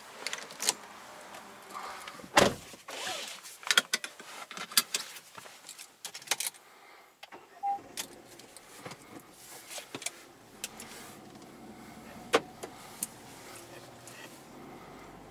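Getting into a Peugeot 208: the car door shuts with a heavy thump about two and a half seconds in, among clicks and rattles of the key and cabin handling. A short single beep from the car follows near the middle, then a faint low steady hum.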